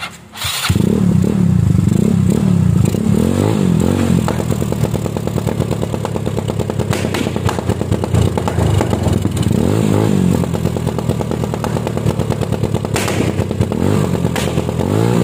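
Yamaha Mio Soul i scooter engine with an aftermarket exhaust starting about a second in and being revved up and down, with sharp exhaust pops now and then as an interrupter relay cuts the ignition to make it backfire.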